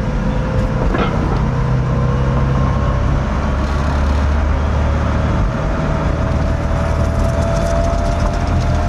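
Home-built electric pickup conversion driving: steady low road and drivetrain rumble in the cab, with a thin electric-motor whine that slowly rises in pitch as it speeds up. A single knock sounds about a second in.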